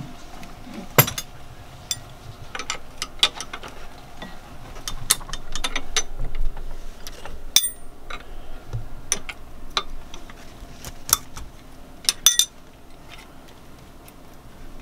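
Hand tools clinking and clicking against metal fittings on a diesel generator engine as its fuel line nuts and bolts are worked loose: irregular sharp taps and clicks, the loudest about a second in and near the end.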